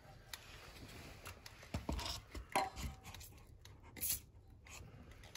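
Scattered handling knocks and clicks, then a short hiss of leak-detection spray from an aerosol can about four seconds in, sprayed onto the air tank's brass fitting to check it for leaks.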